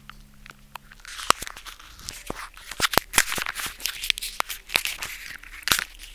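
Wet ground spinach and masala paste sizzling and spluttering in hot mustard oil in a kadhai: a hiss with many sharp, irregular crackles and pops, starting about a second in.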